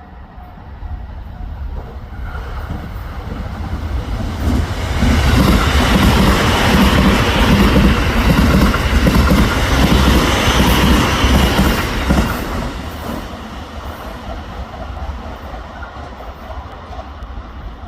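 JR East 255 series electric express train passing by: its rumble and rhythmic wheel clatter build up over the first few seconds, are loudest for about seven seconds, then fade as it goes away.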